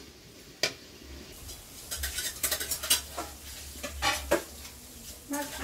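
Metal spatula scraping and clinking against a steel kadai as chopped greens are stirred, with a light sizzle. It is quiet at first, then there is a run of scrapes and clinks from about a second in. A voice starts just before the end.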